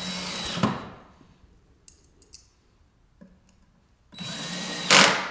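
Cordless drill driving hinge screws into a wooden frame: two short runs of the motor's whine, one at the start and another about four seconds in, the second ending in a brief louder burst.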